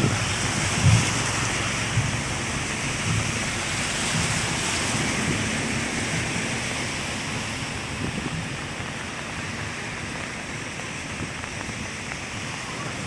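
Steady rushing of rain and floodwater, with water splashing up around vehicles driving through a flooded street. There are a few low bumps in the first three seconds, and the noise slowly gets quieter.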